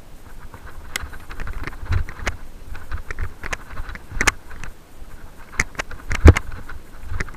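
Mountain bike rattling over a rocky dirt singletrack: irregular clicks and knocks from the bike's chain and frame as the tyres run over stones and roots, with a sharp heavy knock a little after six seconds in, over a low rumble of wind and tyre noise.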